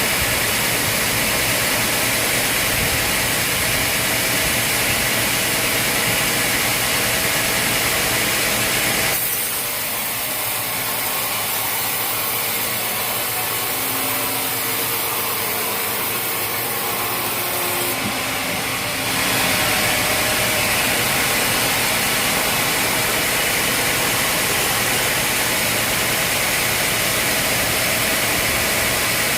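Sawmill machinery running steadily with a loud engine-and-saw noise. About nine seconds in it drops to a quieter run with a few steady hums for some ten seconds, then comes back at full level.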